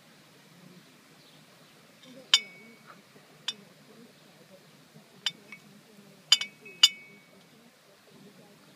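Crockery clinking: about seven sharp clinks, loudest a little past two seconds in and in a cluster near the end, several of them ringing briefly.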